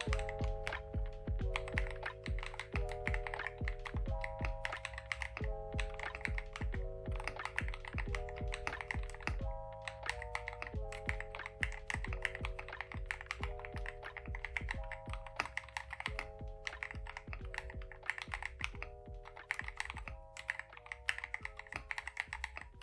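Fast, steady typing on an Epomaker Mini Panda 64 mechanical keyboard fitted with lubed KTT Mint switches, KEEBTape and tuned stabilizers: a continuous patter of keystroke clacks. Soft background music of held chords that change about once a second plays underneath.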